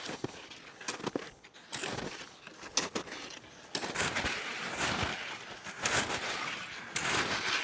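Skis crunching and scraping over snow, with irregular sharp clicks and knocks throughout and a denser stretch of scraping in the second half.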